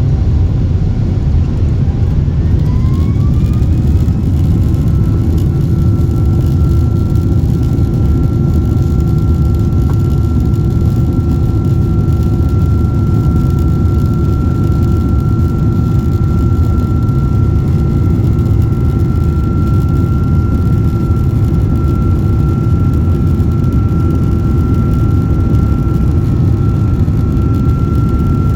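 Boeing 767-400ER cabin: a steady, heavy rumble of the jet engines, with an engine whine that rises in pitch about two to four seconds in and then holds a steady tone as the engines spool up.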